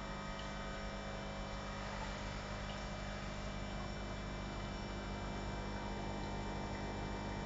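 Steady hum of aquarium equipment, with a constant hiss of air bubbles rising in the tank.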